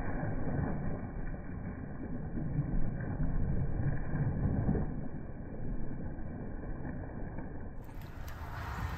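Wind buffeting the microphone over open water: a steady low rumble. About eight seconds in it turns into a brighter rushing hiss.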